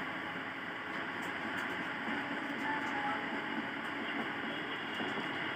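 Steady background noise, an even hiss and rumble with no distinct events.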